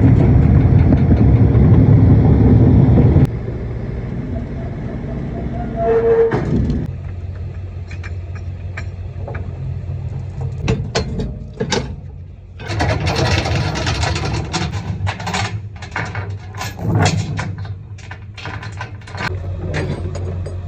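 Diesel engine running steadily, loud for the first three seconds and then lower. A brief tone sounds about six seconds in. From past the middle there is a string of short metallic knocks and rattles.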